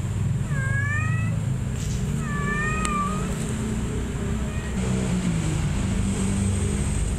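A kitten meowing twice, two short calls about a second apart, each rising and then falling in pitch, over a steady low rumble.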